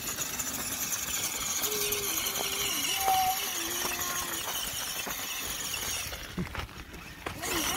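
Homemade battery-powered radio-controlled monster truck driving over gravel, its electric motor and gears giving a steady high whine. It stops about six seconds in, then runs briefly again near the end.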